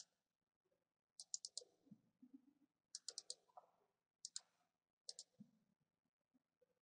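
Computer mouse button clicking, faint, mostly in quick double-clicks: a pair at the start, two runs of four about a second and three seconds in, then two more pairs.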